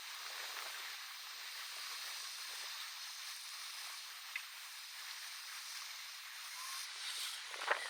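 A steady hiss, with a few light clicks and a louder rattle of clicks near the end.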